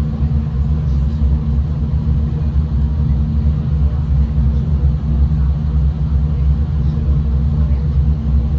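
V/Line diesel passenger train running, heard from on board as a steady low rumble with an even engine drone.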